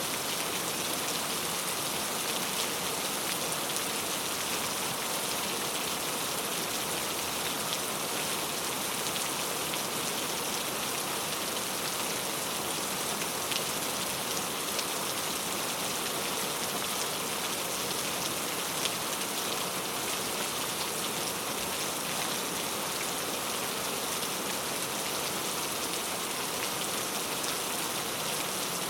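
Steady rain falling, an even hiss of drops on surfaces with scattered individual drop ticks.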